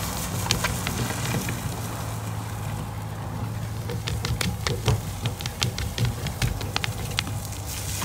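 A truck engine runs with a steady low hum while a tow strap drags an uprooted small evergreen and its root ball out of the ground. From about three and a half seconds in there is a run of sharp cracks and crackles as the roots tear and the dirt and gravel break up.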